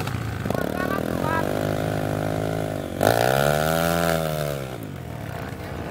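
Dirt bike engines revving while riding through deep mud. A first rev swell runs for about two seconds, then a louder one comes in suddenly about three seconds in, rising and falling in pitch before easing off.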